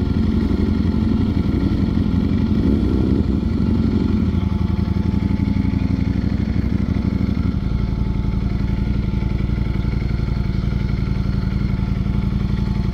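Ducati Streetfighter V4S's 1103 cc V4 engine running at steady, low revs, heard through a microphone inside the rider's helmet; the engine note changes once, about seven and a half seconds in, and then holds steady.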